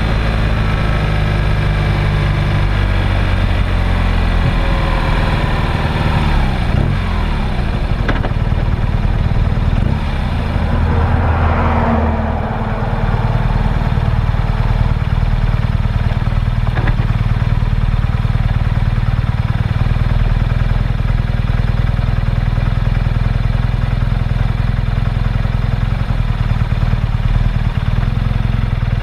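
Vehicle engine running while it drives along. The pitch rises and falls through the first half as the speed changes, then holds steady and low for the rest.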